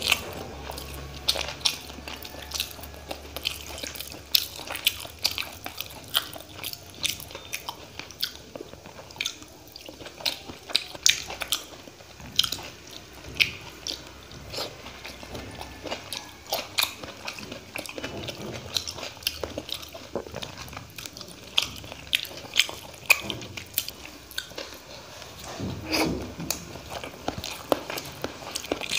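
A man eating rice and curry by hand: chewing and wet mouth smacks, with frequent short sharp clicks.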